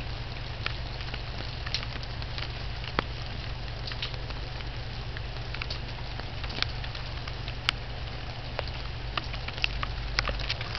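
Rain falling on a garden and on wet paving tiles: a steady hiss with scattered sharp drop taps, over a constant low hum.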